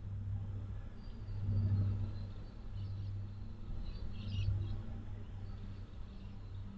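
A low droning hum that swells and eases, with a few faint high chirps about halfway through.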